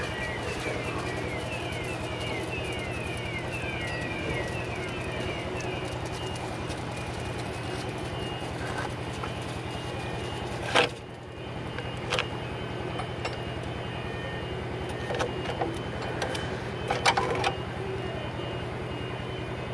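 Cement mixer running with a steady low engine drone while wet concrete slides down its chute. Quick high falling chirps sound through the first six seconds, and a few sharp knocks come through, the loudest about eleven seconds in and a cluster near the end.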